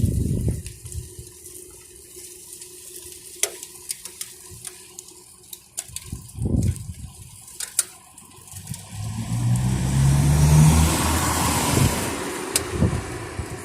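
Gusts of wind buffeting the microphone at first, then a passing vehicle: an engine hum and a hiss of tyres on wet road swell from about nine seconds in and fade near the end.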